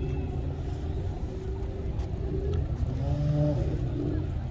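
Motor engine running with a steady low rumble, its pitch rising briefly about three seconds in.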